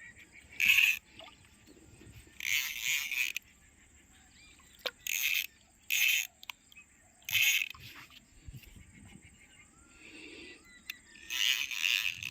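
Frogs croaking in short rasping bursts, each under a second and repeated every second or two, with a thin steady high insect whine underneath.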